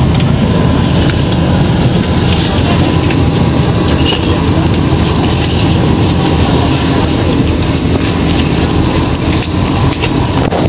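Steady low rumble of a bus running, heard inside the passenger cabin, with rustling and scattered knocks from the phone being handled against clothing.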